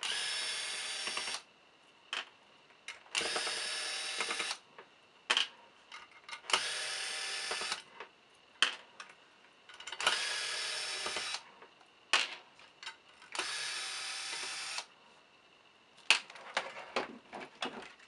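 Electric screwdriver run five times, each run lasting about a second and a half, backing out the screws that hold a fingerprint door lock's keypad circuit board. Small clicks and taps of screws and handling come between the runs, with a cluster of taps near the end.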